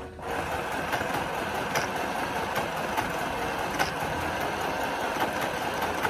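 Electric sewing machine running at a steady speed, its needle stitching in a fast, even clatter. It starts just after the beginning.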